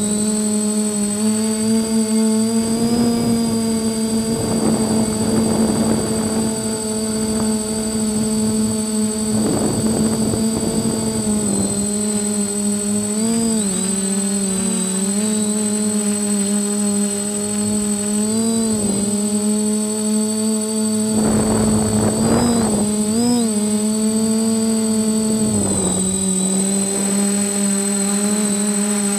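TBS quadcopter's brushless motors and propellers whining at a steady pitch, heard from the camera on the quad; the pitch dips and wobbles briefly several times as the throttle changes. Strong wind rushes over the microphone in gusts.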